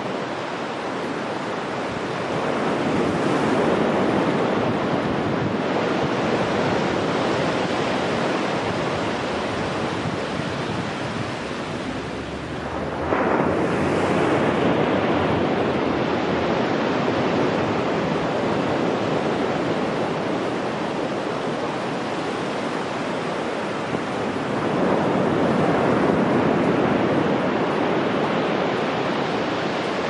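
Ocean surf breaking on a sandy beach, rising and falling as successive waves come in and wash up the shore, with a sudden louder wave break about halfway through.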